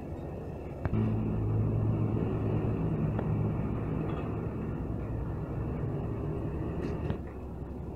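Mercedes-Benz OH 1521 coach's diesel engine running. About a second in it steps up sharply to a louder, steady higher speed, holds it for about six seconds, then drops back toward idle near the end.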